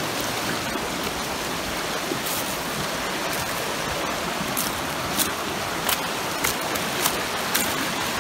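Shallow rocky river running over riffles, a steady rushing hiss, with a scattered series of short sharp clicks through the second half.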